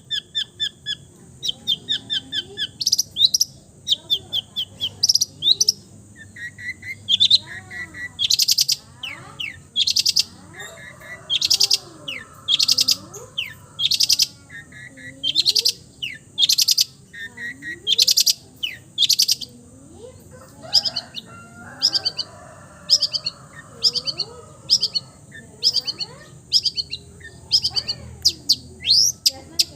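Long-tailed shrike singing a varied song with mimicked notes of other birds: quick trills at first, then loud harsh notes repeated about once a second, with chirps and gliding whistles in between.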